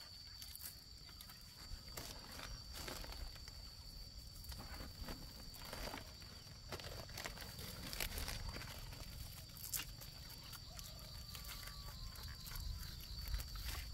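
Rustling and crinkling of a woven plastic sack and a plastic strap as a load is tied down onto a bamboo back basket, in short scattered crackles. A steady high insect drone runs underneath.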